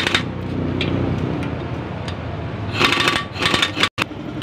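Pneumatic impact wrench rattling in short bursts, briefly at the start and for about a second near three seconds in, driving a piston cooling nozzle bolt into a Mitsubishi 4D56 diesel engine block.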